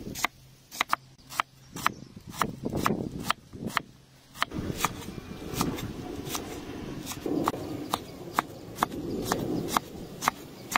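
Large kitchen knife chopping onion, spring onions and red chillies on a wooden chopping board: sharp, regular knocks of the blade on the board about two to three times a second, with the crunch of the vegetables being cut between strokes.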